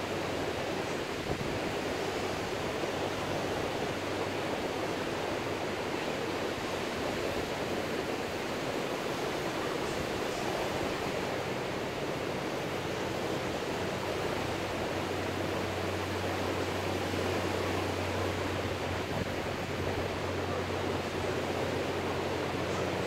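Ocean surf breaking on the beach, heard as a steady, even wash. A low steady hum comes in about two-thirds of the way through.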